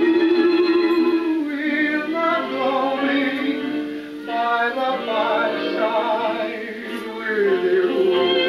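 Background music from an old dance-band recording: a wavering melody line with vibrato over the band, thin-sounding with little bass.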